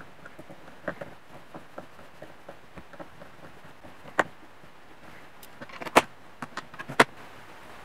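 Scattered small clicks and taps of a hobby servo and its metal bracket and plastic parts being handled and fitted together on a workbench, with three sharper clicks about four, six and seven seconds in.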